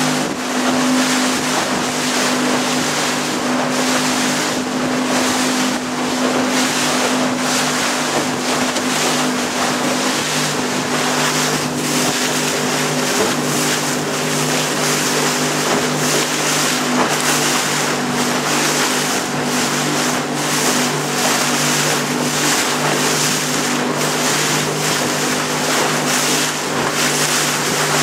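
A small boat's motor running steadily at a constant pitch while under way, over the rush of water and wind along the hull.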